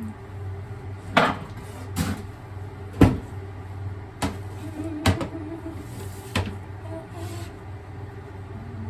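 Kitchen clatter: about six separate knocks of dishes and cupboard, roughly one a second, the loudest about three seconds in, over a steady low hum.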